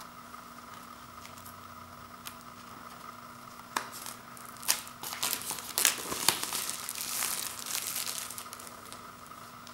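Plastic shrink-wrap being torn open and peeled off a cardboard CD digipak, crinkling and crackling. It starts about four seconds in with a few sharp tearing snaps, and the crinkling runs on until near the end.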